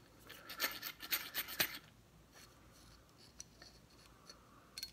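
Metal lightsaber hilt being unscrewed by hand to reach the battery clip: a quick run of gritty scraping and clicking from the threads in the first two seconds, then a few faint clicks.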